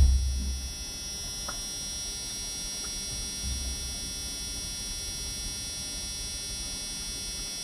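Engine of a flood-drowned pickup truck idling, heard from inside the cab as a steady buzzing hum, with a brief loud thump at the very start. The owner hears a slight knock in it, which he puts down to either a valve or a rod.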